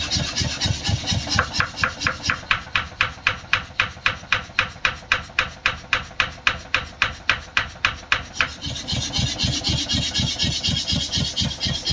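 Old 15 kg mechanical forging hammer running, its ram striking at about four blows a second. From about a second in until about eight seconds in the blows turn sharp and ringing, then go back to a duller, thudding beat.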